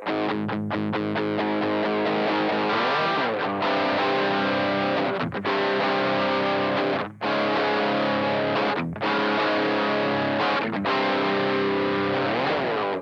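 Distorted electric guitar played through a BOSS GT-100 multi-effects preset: held chords with a few short breaks between them and a couple of slides.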